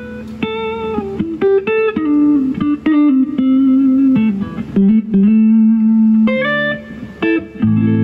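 Fender Stratocaster played clean through a Laney LF60-112 Lionheart Foundry 1x12 tube combo in its full 60-watt mode, flat EQ: a melodic single-note line with string bends and slides, with a few notes ringing together near the end.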